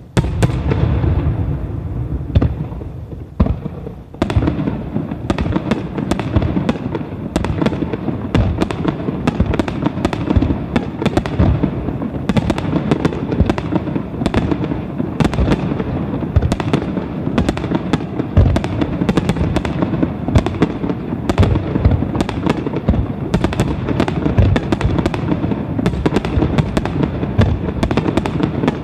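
Aerial fireworks display: a dense, continuous barrage of shell bursts, the bangs and crackle overlapping several times a second, with a short lull about four seconds in.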